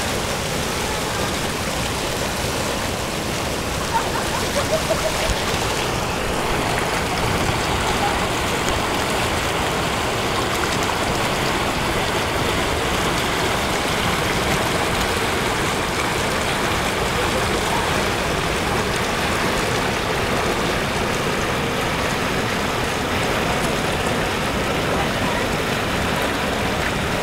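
River rapids rushing over and around boulders: a steady, loud rush of whitewater.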